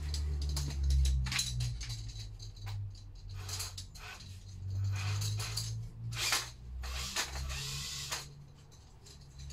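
Electric drill turning a cylinder hone in the Lister D's bore: the drill motor's low hum shifts in pitch and level, with irregular scrapes and clicks from the hone working against the cylinder wall. The hum drops away near the end.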